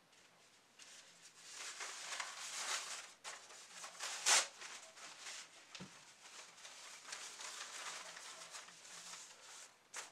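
Paper napkin rustling and crinkling as it is handled and unfolded, with one sharper, louder crackle about four seconds in.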